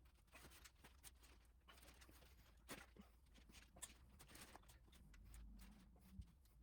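Near silence: room tone with a few faint clicks and light knocks of small parts being handled.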